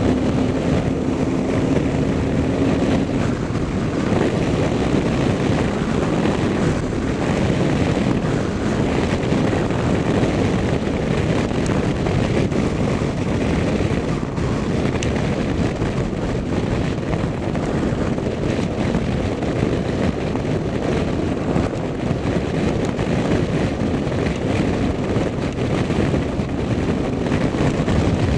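Steady road and engine noise of a car being driven, with a faint steady hum in the first few seconds.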